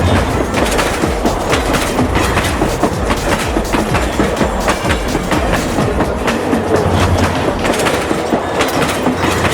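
Battery-powered toy bullet train running along its track, with a steady, dense clatter of rapid clicks.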